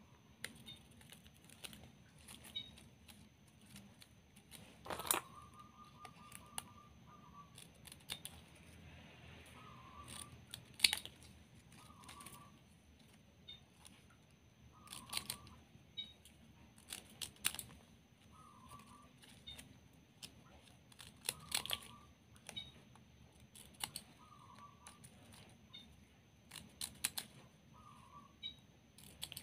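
Small spring-type thread snips cutting satin ribbon: sharp snips at irregular intervals, with the ribbon rustling as it is handled between cuts.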